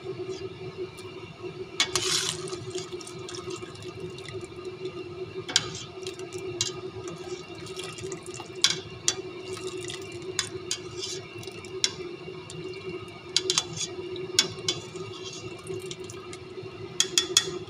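Tomato broth running and dripping through a perforated metal skimmer back into a steel cooking pot as the skimmer is stirred and lifted, with sharp clinks of the skimmer against the pot now and then. A steady hum runs underneath.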